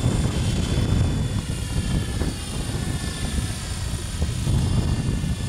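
Electric GAUI Hurricane 550 radio-controlled helicopter flying some way off. Its rotor and motor whine slowly rises and falls in pitch as it manoeuvres, over a steady low rumble.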